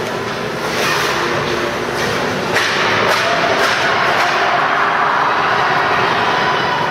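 Ice hockey game sounds: skates scraping the ice and a few sharp stick or puck clacks over a steady arena din that grows louder about halfway through.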